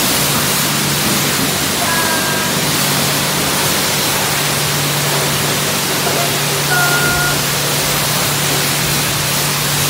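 High-pressure car-wash wand spraying water onto a car's wheel and body: a loud, steady hiss, with a low steady hum underneath.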